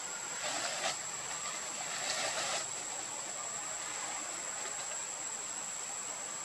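Outdoor ambience: a steady high-pitched insect drone over a constant hiss, with two short bursts of rushing noise, about half a second and two seconds in.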